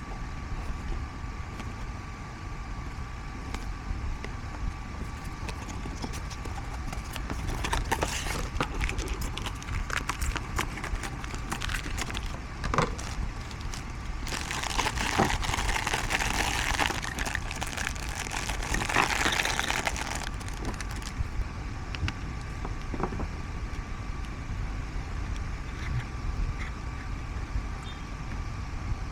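Figure packaging handled during an unboxing: scattered clicks and taps, then about five seconds of rustling packaging in the middle, over a steady low hum.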